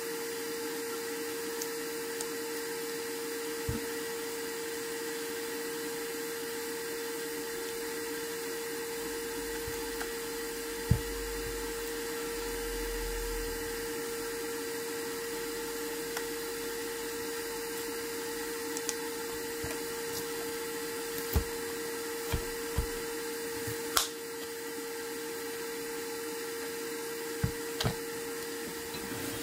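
Steady whine of a small electric motor or fan with a hiss, holding one pitch throughout. About ten light clicks and taps are scattered over it, typical of hand tools working on a phone.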